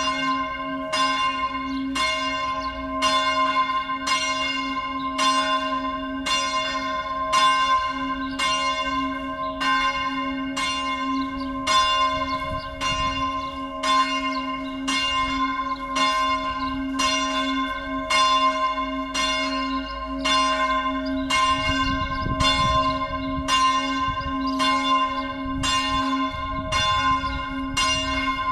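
A church's four bells swinging together in full peal, rung in the Tyrolean system: a continuous stream of overlapping strikes, one to two a second, over a steady low hum from the ringing bells.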